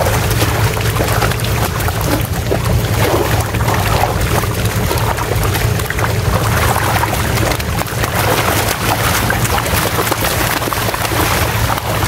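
Many fish thrashing and splashing in a seine net drawn in at a pond's edge, with water slapping and scattered splashes as the fish are grabbed and thrown into plastic baskets, over a steady low drone.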